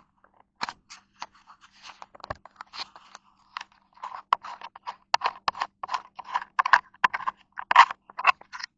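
Handling noise from the camera being taken off its mount: irregular scratching, scraping and small knocks right at the microphone, busiest in the second half.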